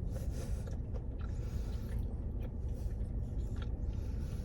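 A person chewing food close to the microphone, with irregular soft eating noises over a steady low hum.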